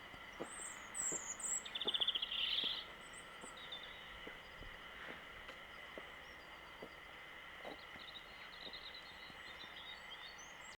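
Birds chirping, with a loud rapid trill about two seconds in and fainter chirps after it, over scattered faint clicks.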